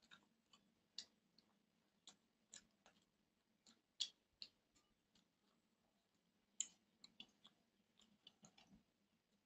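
Eating by hand, close to the mic: soft wet clicks and smacks of chewing and fingers working rice and duck curry on a steel plate, irregular, a few a second, with the loudest about four seconds in and again near seven seconds.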